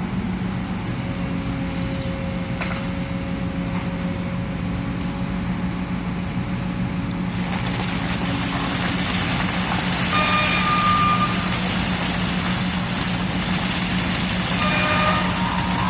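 A heavy construction machine's engine running steadily, as at a concrete pour. A rushing noise joins about halfway through, and two short high beeps sound in the second half.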